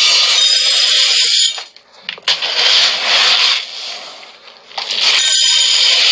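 Dry mixed seeds poured into a grain grinder, a loud hissing rush in three pours.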